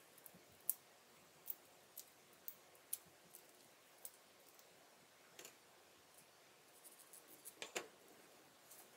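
Light, scattered clicks and taps of small objects being handled in a quiet room, a dozen or so at uneven intervals, with a short cluster of them near the end.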